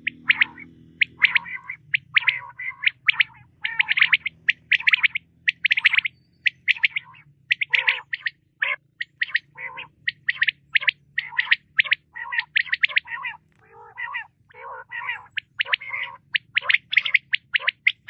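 Common quail calling: a quick, uneven run of short, sharp calls, several to a second, with no real pause.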